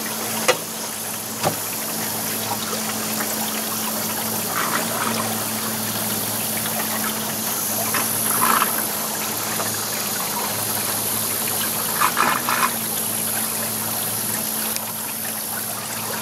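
Boat motor running with a steady low hum while water trickles and splashes along the hull, with a few faint short sounds now and then.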